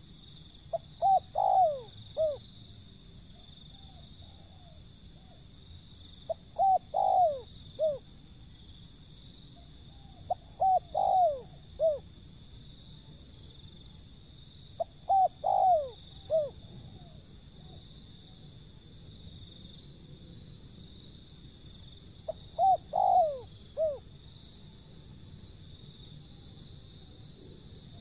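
Spotted dove (tekukur) cooing: five phrases of a few quick rising-and-falling coos each, repeated every four to seven seconds.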